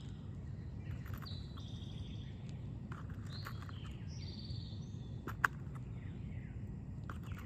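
Songbirds calling in short high trilled phrases, with a few sharp clicks from the shingle work and one louder click about five seconds in, over a steady low background rumble.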